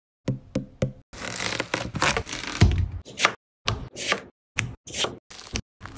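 Three quick taps on a whole watermelon, then a knife cutting through its rind and flesh, first in one long crunchy stroke and then in several short separate cuts.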